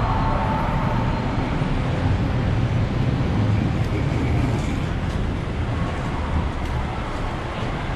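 Road traffic noise: vehicles running with a steady low rumble, and a few faint clicks in the second half.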